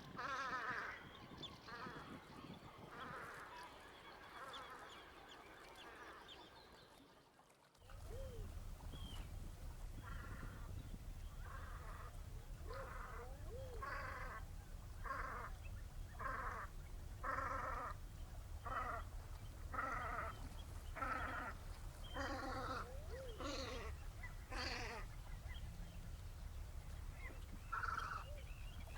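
Velvet scoters calling: a run of short, harsh, wavering calls, about one a second, over a steady low rumble that starts abruptly about eight seconds in.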